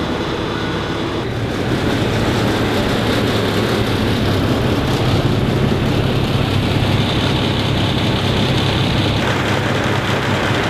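A boatyard travel lift's engine running steadily while it lowers a sailboat in its slings. The engine gets a little louder about a second and a half in.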